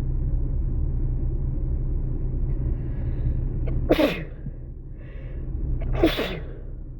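A person sneezing twice, about two seconds apart, over a steady low rumble.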